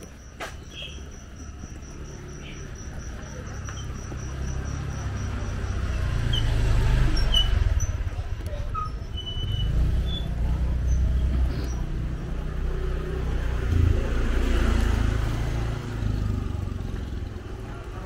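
An insect, cricket-like, chirping in an even high-pitched pulse of about four beats a second, dying out around seven seconds in. Under it, a low rumble swells about six seconds in and stays the loudest sound.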